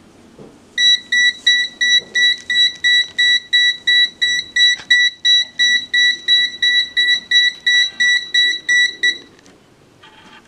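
Alarm of a HABOTEST HT601B handheld gas leak detector beeping rapidly, about three short high-pitched beeps a second, starting just under a second in and stopping about nine seconds in. It goes off while the detector's gas reading climbs to about 3% LEL.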